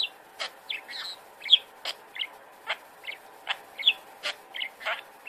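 Budgerigar chattering: a rapid run of short chirps mixed with sharp clicks, about three a second.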